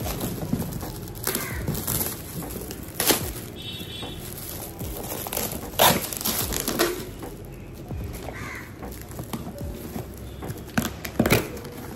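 Shiny plastic gift wrap and a crinkly iridescent plastic bag rustling and crackling as a present is unwrapped, with a few sharp, loud crackles.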